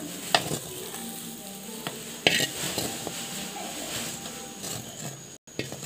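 A spatula stirring and scraping a sizzling scrambled-egg, onion and green-chilli filling in a metal pan. The spatula knocks sharply against the pan twice.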